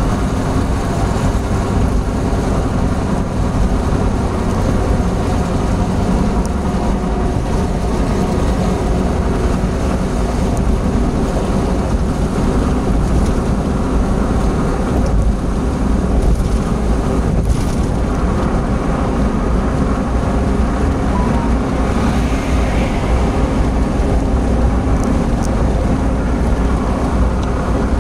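Opel Blazer SUV cruising at about 100 km/h, heard from inside the cabin: a steady engine drone mixed with tyre and wind noise.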